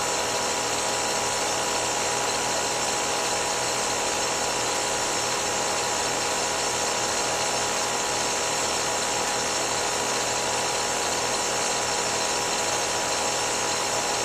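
Air-conditioner condensing unit running steadily, its compressor and condenser fan giving an even hum and whir, on a freshly installed expansion valve with the refrigerant charge set correctly.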